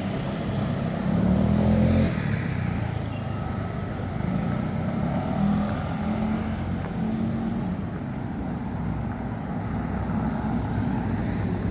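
Motor vehicle engine running with road noise, a steady low rumble that swells louder for about a second near the start.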